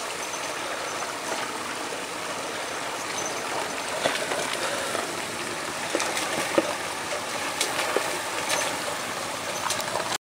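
Shallow mountain stream running over rocks, a steady rush of water, with scattered sharp clicks and knocks.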